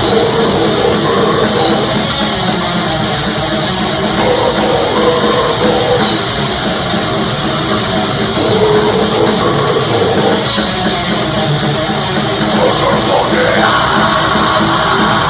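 Death metal band playing live, loud and dense: heavily distorted electric guitars riffing over a drum kit.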